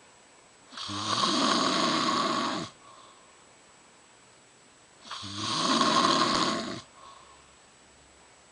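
A woman snoring in her sleep: two long snores, each lasting about two seconds, about four seconds apart.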